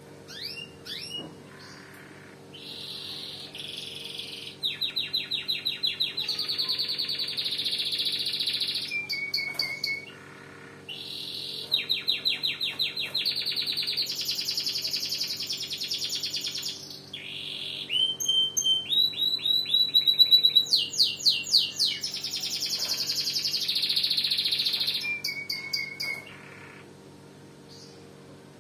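Domestic canary singing in long rolling song phrases of fast trills and repeated notes, in three bouts with short pauses between them, stopping a couple of seconds before the end. A steady low hum runs underneath.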